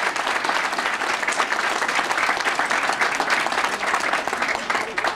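Audience applauding, a dense steady round of clapping that begins to taper off near the end.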